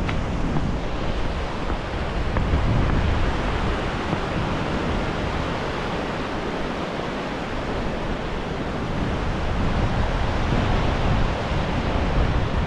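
Wind buffeting the microphone in uneven low gusts, over a steady rushing noise.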